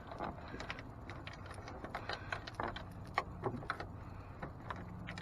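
Hands working a small LED halo ring and its tape into a car headlight: scattered light clicks, taps and rustles. A low steady hum comes in about halfway through.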